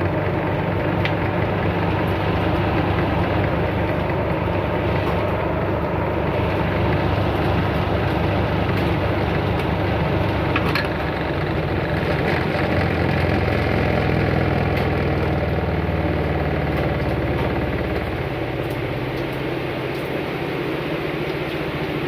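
Washing machine motor running with a steady hum. About 18 seconds in, its pitch shifts and it gets slightly quieter.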